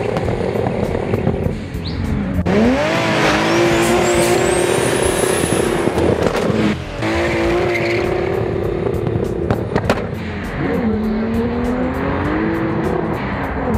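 Opel Ascona A's turbocharged 3.0-litre 24-valve C30SE straight-six revving hard during a burnout with tyres squealing: the revs climb steeply a couple of seconds in and are held high and steady, break off briefly about halfway, are held again, then dip and rise near the end.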